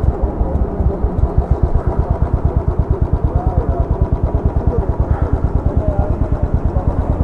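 Royal Enfield 350's single-cylinder engine idling through a loud exhaust, a rapid even thump. The rider says the bike is misfiring badly and suspects a spark plug problem.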